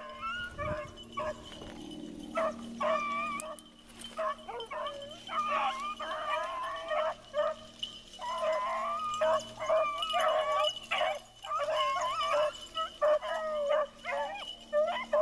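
A pack of beagles baying in full cry, several dogs' drawn-out wavering howls overlapping almost without a break, with a short lull about four seconds in. This is the sound of hounds running a rabbit's scent trail.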